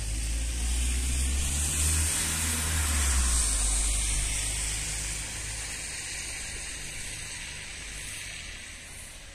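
Street traffic on a wet, slushy road: a vehicle's tyres hissing over a low rumble, loudest a few seconds in and then slowly fading away.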